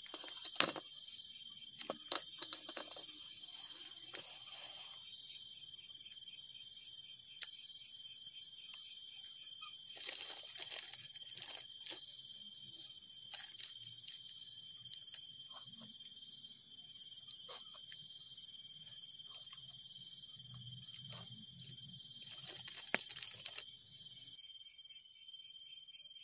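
Dense, steady chorus of night insects, with scattered clicks, knocks and rustles from a folding camp table with metal legs being unfolded and set down. Near the end the insect chorus changes abruptly to a thinner pattern.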